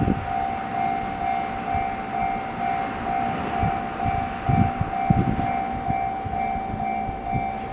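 Japanese railway level-crossing alarm bell, the JR standard electronic tone set slightly high, dinging steadily about twice a second. Underneath it a train runs past, with low rumbling and a few heavy thumps about halfway through.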